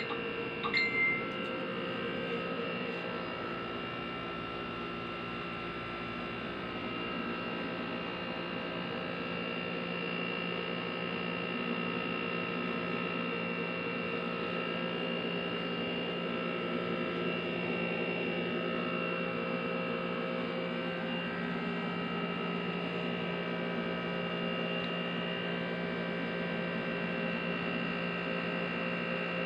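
Window-type air conditioner running: a steady hum with several steady tones layered over it.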